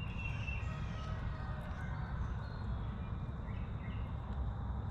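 Faint bird calls, short chirps, the clearest right at the start, over a steady low rumble of outdoor background noise.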